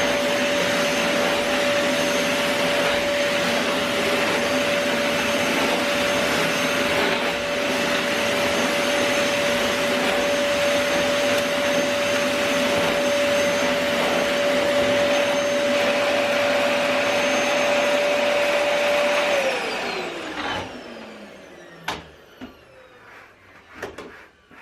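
Bagless vacuum cleaner running steadily with a constant motor whine while vacuuming sawdust off carpet. About nineteen seconds in it is switched off and the whine falls away as the motor spins down, followed by a few light knocks.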